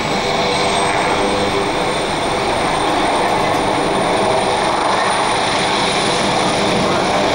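Leonardo AW139 rescue helicopter lifting off from the pad: steady rotor and twin-turbine noise, with a high turbine whine that rises slightly in the first couple of seconds as it takes off.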